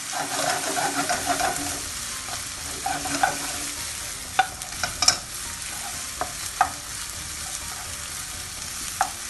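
Onions and ginger-garlic paste frying with a steady sizzle in a non-stick pan, stirred and scraped with a wooden spatula. A few sharp knocks of the spatula against the pan stand out, the loudest a little past the halfway point.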